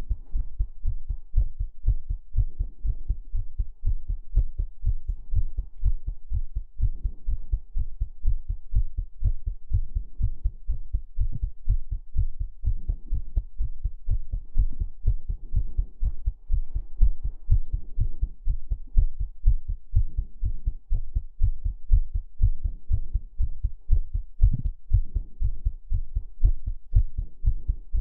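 Heartbeat sounds: a steady, even rhythm of deep, low thumps.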